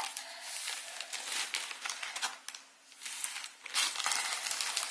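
Rustling and scraping of hands and dough on floured baking paper, with many small clicks, as cookie dough is pressed out and cut by hand. It drops out briefly about three seconds in.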